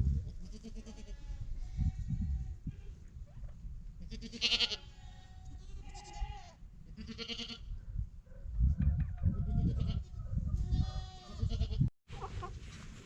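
Goats bleating several times, a few seconds apart, over a low rumble that is loudest in the second half.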